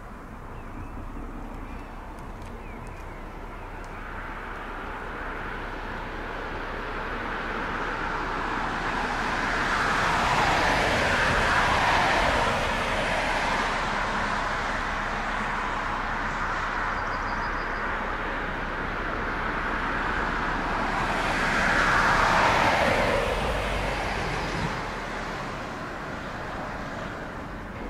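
Two road vehicles pass close by in turn, about ten seconds apart, each a rush of tyre and engine noise that swells and drops in pitch as it goes by, over a steady low rumble.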